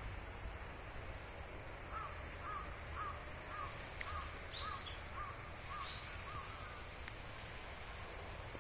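A crow cawing in a quick, even series of about nine short calls, roughly two a second, over steady outdoor background noise. A few higher chirps sound about midway.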